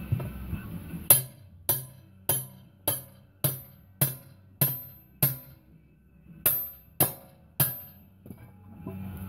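Eleven ringing hammer blows on steel: eight evenly spaced, about one every 0.6 s, then a short pause and three more. The hammer is driving a bead breaker bar in at the bead of a 5-ton truck combat wheel to break the tire bead loose from the rim.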